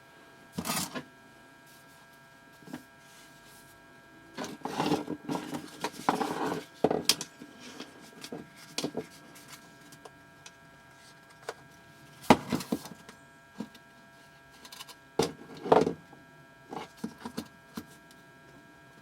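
Handling noises: scattered clicks, knocks and rustling, loudest about 12 seconds in, over a faint steady electrical hum.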